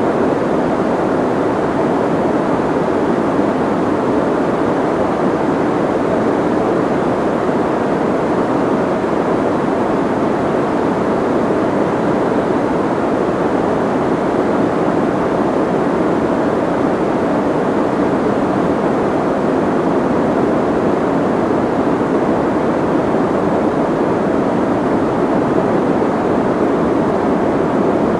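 Soft white noise: a smooth, steady hiss weighted toward the low-middle range, with little high treble, and no change at all.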